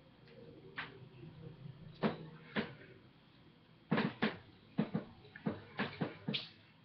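Hands tapping and slapping against each other and against the body while signing American Sign Language. Short, sharp taps at uneven intervals: a few in the first half, then more frequent from about four seconds in.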